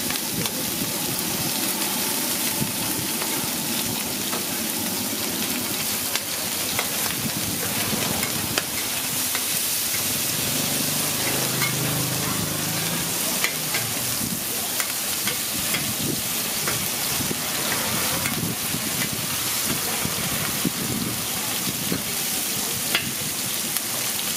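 Whole shrimp sizzling in hot oil on a large flat pan, a steady frying sizzle, with a metal spatula scraping and clicking against the pan now and then as they are stirred.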